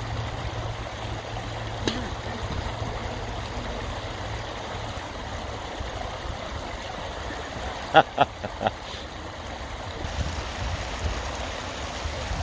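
Steady rush of moving river water at the bank, with a low hum that fades out about four seconds in and a few short, sharp sounds about eight seconds in.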